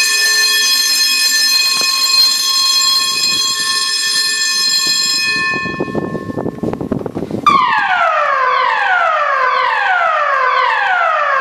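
Building fire alarm system sounding: a loud, steady electronic alarm tone for about five seconds stops. After a couple of seconds of rushing noise, the evacuation signal starts, a tone sweeping downward over and over, about once every second and a quarter, signalling people to leave the building.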